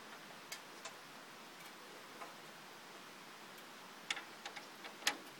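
Scattered light clicks and taps from hands handling the clear plastic front panel and wooden frame of a homemade excavator cab. A few single clicks come in the first half, then a quick cluster about four to five seconds in.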